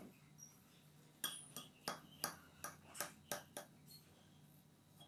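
A table knife clinking against a porcelain dish while sawing through a sponge roll cake: about eight light clicks, roughly three a second, starting about a second in and stopping a little past the middle.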